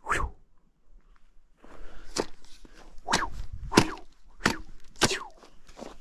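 Hatchet chopping firewood: one blow at the start, then after a short pause five sharp strikes into the wood, roughly one every three-quarters of a second.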